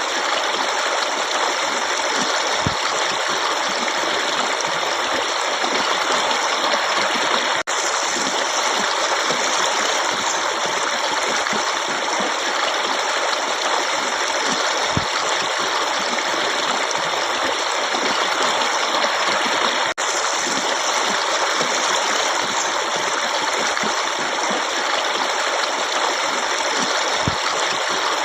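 Forest stream running steadily, an even rushing of water over rocks, with two momentary drops in level and a few faint low knocks.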